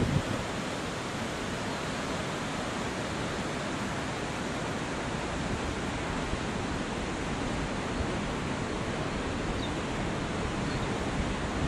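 Steady outdoor rushing noise, an even hiss with no breaks or distinct events.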